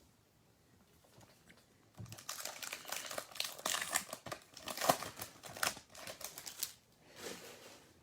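Plastic wrapper of a pack of Topps baseball cards crinkling as it is torn open and pulled off: a dense run of crackles starting about two seconds in and lasting roughly five seconds, then a short rustle near the end.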